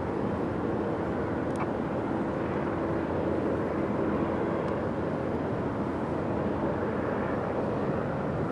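Steady rumble of distant aircraft: an even noise with a faint hum running through it.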